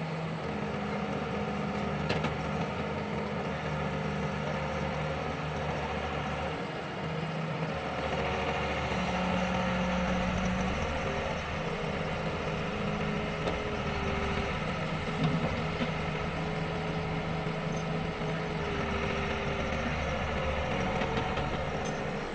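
Diesel engine of an old Sumitomo hydraulic excavator running steadily while loading broken concrete, its pitch stepping up and down as the machine works. Two short sharp knocks, about two seconds in and a little past the middle.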